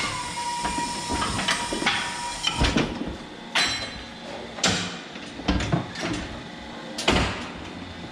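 A series of sharp knocks or bangs, about five at uneven intervals roughly a second apart, after a steady tone fades out in the first couple of seconds.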